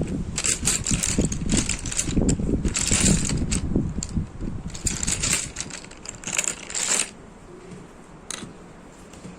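Wind gusting and buffeting against the microphone, with bursts of scratchy rustling. It drops to a quieter, steady background after about seven seconds.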